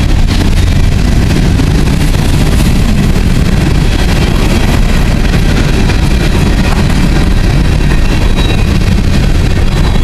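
Empty coal hopper cars of a freight train rolling past: a loud, steady rumble of steel wheels on the rails.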